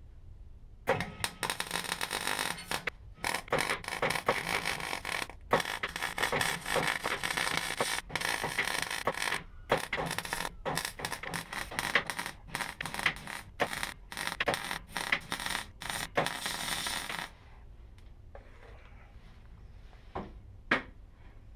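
MIG welding arc crackling on car body sheet metal, in runs of a second or two broken by short pauses as the trigger is released and pressed again. It stops about 17 seconds in, and two short clicks follow near the end.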